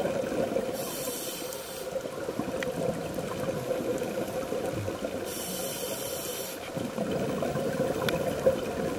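Scuba regulator breathing heard underwater: two hissing breaths, about four and a half seconds apart, over a steady wash of water noise.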